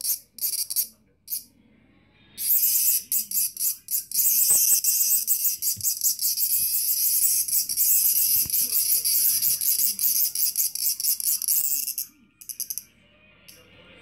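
Cicada held between the fingers giving its loud, harsh distress buzz. A few short bursts come first, then a long unbroken buzz runs for about ten seconds and cuts off suddenly, followed by a couple more brief bursts.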